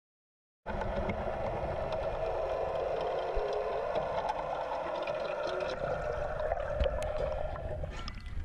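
Muffled underwater sound picked up by a GoPro in its waterproof housing: a steady hum over a low rumble, starting after a short silence. Near the end the sound changes as the camera comes up out of the water.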